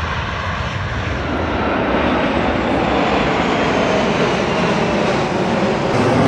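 Jet noise from a formation of KAI T-50B Golden Eagle jets: a steady, even rush that builds a little after the first second.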